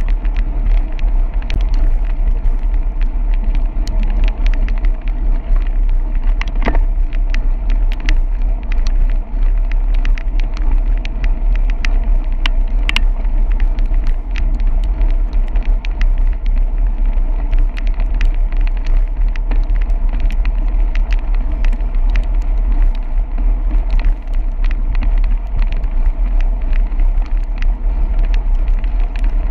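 Bicycle rolling along wet pavement, heard as a loud, steady rumble of wind and road vibration on the bike-mounted camera, with tyre noise and many small clicks and taps.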